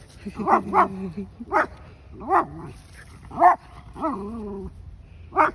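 Miniature pinscher barking: a run of about six short, sharp barks a second or so apart, with a longer wavering yelp about four seconds in.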